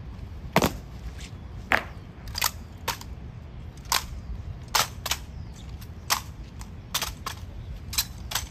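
Honour guards' drill on stone pavement: a string of sharp, irregularly spaced clacks and knocks from rifles being slapped and struck and boots stamping, two or three a second. Two louder knocks come in the first two seconds. A steady low rumble runs underneath.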